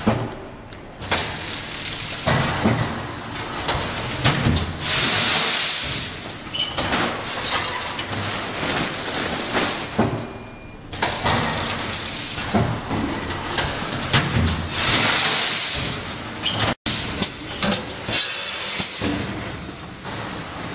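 VP105 vertical form-fill-seal packing machine with linear weigher running its bagging cycle: steady mechanical clatter and clunks, with two long bursts of compressed-air hiss from its pneumatic cylinders.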